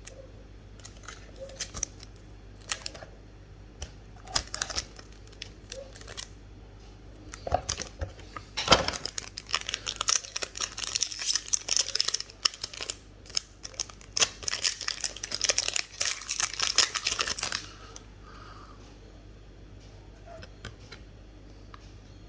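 Yu-Gi-Oh booster pack's foil wrapper being handled and torn open: a few light rustles and clicks, then dense crinkling and tearing for about nine seconds that stops suddenly.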